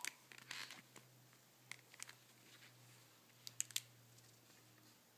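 Faint rustling and tapping of a child's picture book being handled, its pages turned. A soft rustle comes early, then a few short clicks about two seconds in and a quick cluster of three around three and a half seconds in.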